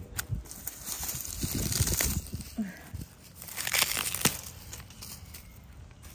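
Dry dead plant stalks and debris rustling, crackling and snapping as they are grabbed and pulled up from the ground by hand, loudest in two bursts about two and four seconds in.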